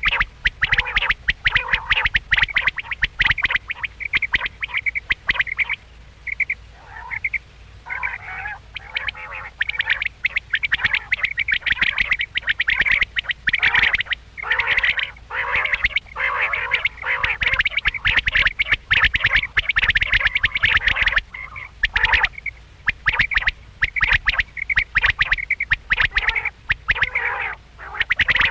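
Quail calling over and over: many short, repeated calls, several often overlapping, in quick irregular runs with brief pauses.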